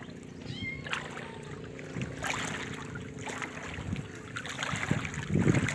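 Wind buffeting the microphone over small waves lapping in shallow water at the shoreline, with a stronger gust near the end.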